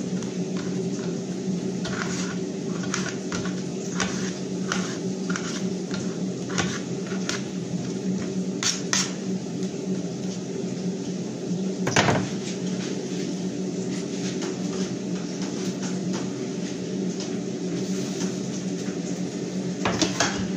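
Hands and a knife working food on a large aluminium tray: scattered light taps and clicks, with one louder knock about twelve seconds in. A steady machine hum with a few fixed tones runs underneath.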